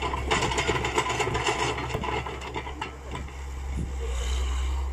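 IHI hydraulic excavator's diesel engine running as the machine digs, a steady low drone that swells slightly near the end.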